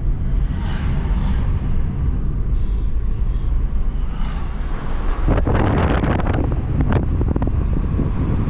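Steady low rumble of road and engine noise inside a moving car. About five seconds in, a louder rushing, crackling wind noise on the microphone joins it and carries on to the end.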